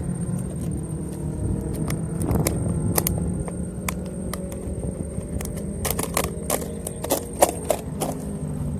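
A steady mechanical hum with a thin high whine over it, and a cluster of sharp clicks and rattles in the second half.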